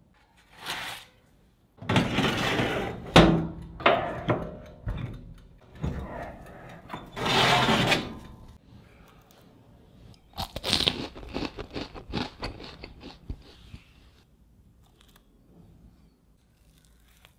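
Kitchen handling sounds: rustling and scraping as a parchment-lined baking tray of garlic bread goes into an oven. Several separate handling noises come before it, and a run of short crisp crunches follows.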